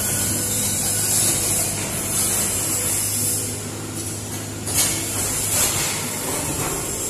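Komatsu PC78UU mini excavator running as it crawls down the loading ramps off a truck, a steady engine hum under a high hiss, with a single knock about five seconds in.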